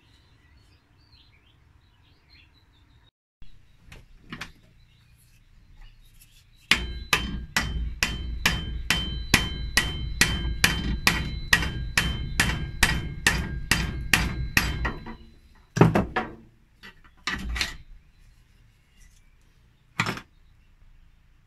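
Hammer blows on a steel rod driving the old wooden handle out of a rusty hatchet head clamped in a bench vise: a steady run of about twenty strikes, two or three a second, each with a metallic ring, then a few single knocks near the end.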